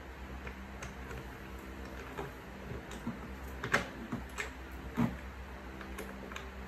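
Scattered clicks and knocks of gaming-chair parts being handled and fitted during assembly, the loudest a little past halfway and another about three-quarters through. A steady low hum runs underneath.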